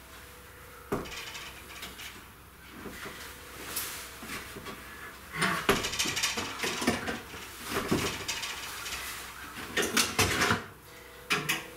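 Stepladder being moved and set in place against a mop handle: scattered knocks at first, then a run of clattering and rattling from about halfway through.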